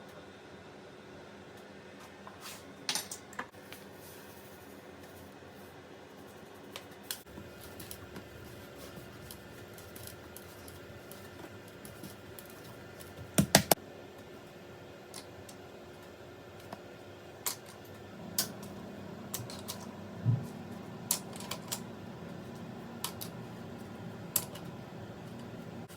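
Small clicks, taps and knocks of objects being handled, scattered throughout, with three sharp loud clicks close together about halfway through and more frequent taps near the end, over a faint steady hum.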